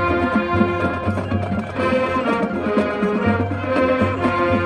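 Marching band playing a tune with brass and saxophones over drums, with a heavy low-brass bass line and held chords that change every second or so.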